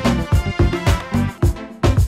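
Upbeat instrumental music with a steady drum beat and a bass line, easing off briefly near the end.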